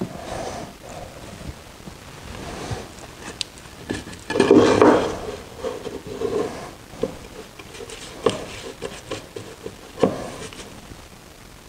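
Thin wooden strips being handled, tapped and rubbed against one another on a workbench while glue is brushed onto them for a cutting-board glue-up, with light knocks throughout and a louder stretch of wood handling about halfway through.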